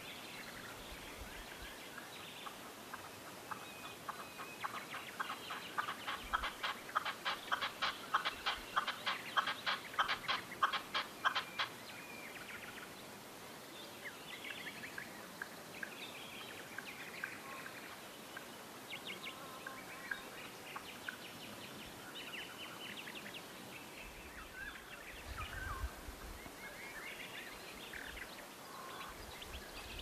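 A partridge calling: a rapid run of clucking notes, about four a second, that grows louder over several seconds and stops abruptly about eleven seconds in. Scattered shorter bird calls follow.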